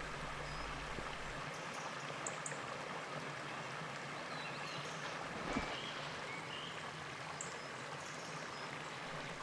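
Mountain stream running steadily, an even rush of flowing water.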